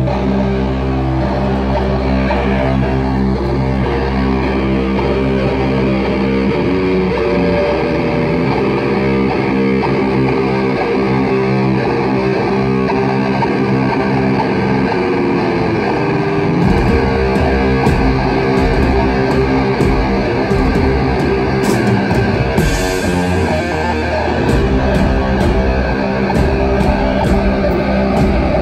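A live doom metal band playing loud: heavily distorted electric guitar and bass hold sustained, droning chords over drums. About two-thirds of the way in, regular cymbal strikes join the beat.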